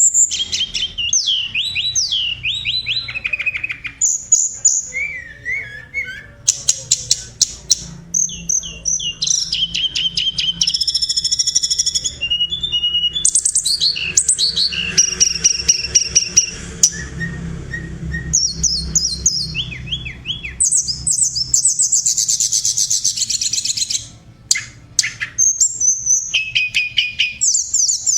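Tledekan gunung songbird singing a varied song of short phrases: fast chirps, rapid trills and quick whistled sweeps, with a short pause between phrases. A faint low hum runs underneath.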